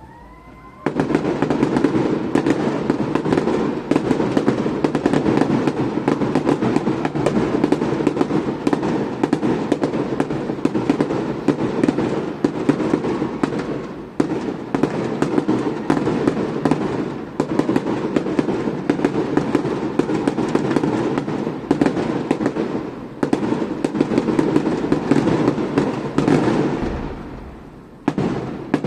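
Fireworks display: a short rising whistle, then from about a second in a dense, continuous crackling and popping of many shells bursting. The crackle dies away briefly near the end before starting again.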